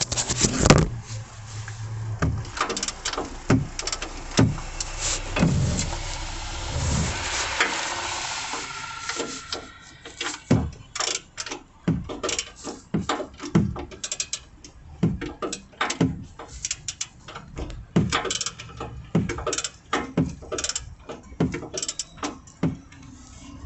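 Ratchet wrench clicking in irregular spurts under the truck as the engine-oil drain plug is worked loose, with scraping and rustling over the first several seconds.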